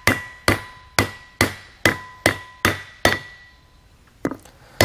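Mallet blows on a wood block, driving an oil seal down into a trailer disc-brake hub to seat it. About eight even blows, roughly two and a half a second, each with a short ring, then they stop with one light tap near the end.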